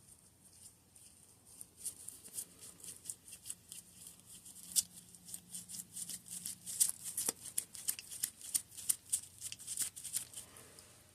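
Hope Race Evo X2 hydraulic disc brake lever being pumped over and over, making a fast run of light clicks that starts about two seconds in and keeps on to near the end. The lever feels really low in fluid.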